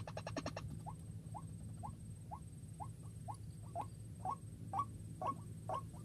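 White-breasted waterhen calls: a quick rattle of notes ends just after the start, then a string of short falling calls follows, about two a second, growing louder and closer-set from about four seconds in.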